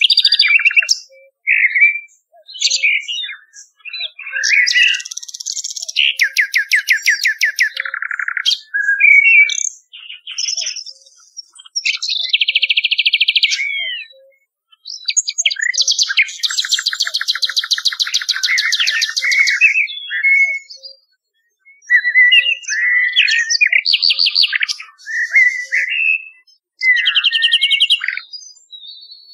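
Common nightingale and blackbird song. Loud phrases of fast rattling trills and rapidly repeated notes alternate with short whistled notes and slides, with brief pauses between phrases.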